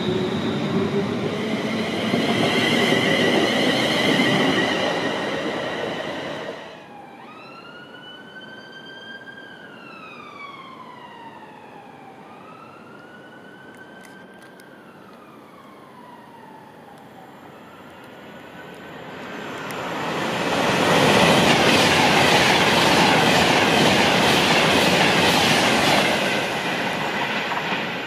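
London Midland Class 350 Desiro electric multiple unit moving through the platform with a steady electric motor whine. After that it is quieter, and a siren wails, rising and falling twice. Then a Virgin Class 390 Pendolino electric train passes at speed with a loud rush of air and wheels that fades near the end.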